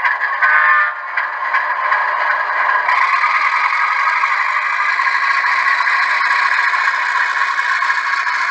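Model train running on layout track: a steady rattling, scraping noise that grows fuller and brighter about three seconds in.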